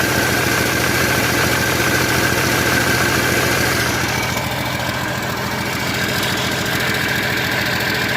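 Caterpillar 320D2 excavator's diesel engine idling steadily, with a thin steady whine over the engine note. About four seconds in the sound drops a little and turns duller.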